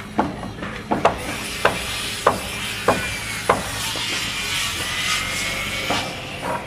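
Hammer blows on wood, about one every 0.6 s, then a steady rasping noise with a faint wavering whine, with two more knocks near the end.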